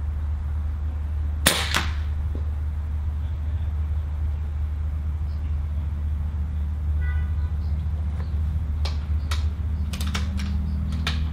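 A single shot from a Cometa Orion bullpup .22 pre-charged air rifle about a second and a half in: a sharp crack with a second, smaller click just after. Near the end comes a run of short metallic clicks from the rifle being cocked and reloaded, over a steady low rumble.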